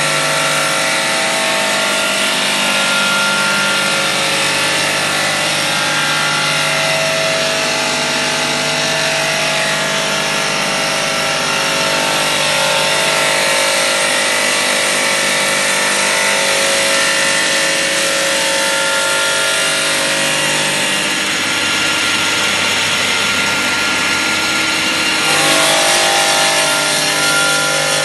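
A motor-driven machine running steadily, with a brief change in its pitch about 25 seconds in.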